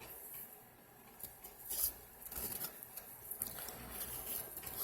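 Faint handling sounds: a few light clicks and rustles over low room noise.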